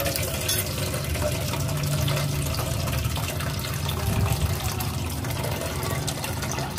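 Water running from a tap into a stainless steel cooking pot, filling it in a steady stream.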